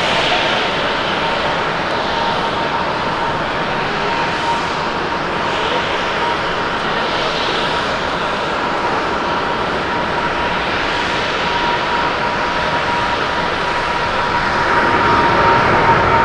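Boeing 777-200ER's twin jet engines at takeoff power during the takeoff roll: a steady rush of engine noise with a steady whine through it, growing a little louder near the end.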